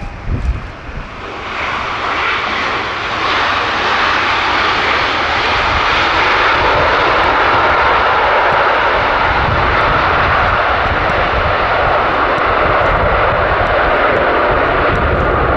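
Boeing 787-10 airliner's jet engines at taxi power: a steady whooshing roar that swells about a second and a half in and then holds level.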